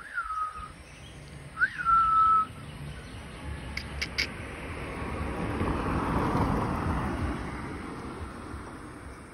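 Two short whistled notes about a second and a half apart, each flicking up sharply and then settling on a steady held tone. Three quick clicks follow about four seconds in, then a rush of noise that swells and fades.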